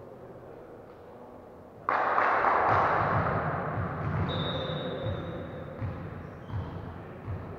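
Indoor volleyball match in a sports hall: a sudden loud rush of noise about two seconds in that slowly dies away, with dull thuds of ball and feet on the court floor. A short high whistle sounds about halfway through.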